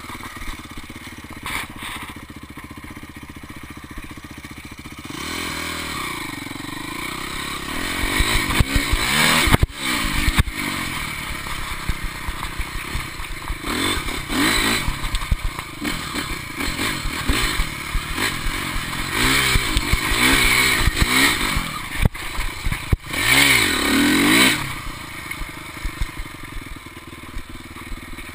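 Motocross bike engine running steadily at low revs, then revving up and down over and over as it is ridden hard, louder from about eight seconds in.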